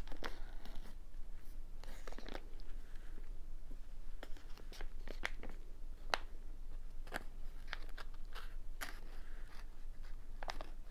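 Close-miked handling and tasting of a pack of steamed, marinated artichokes: scattered short crackles and clicks from the packaging being opened and a piece being bitten and chewed.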